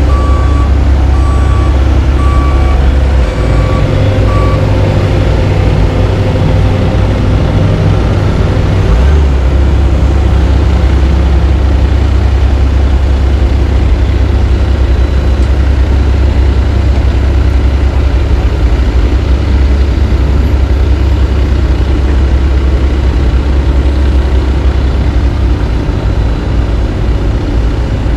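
Heavy diesel machinery running steadily, mainly the CAT AP655F asphalt paver laying asphalt, with a backup alarm beeping about once a second for the first few seconds before it stops.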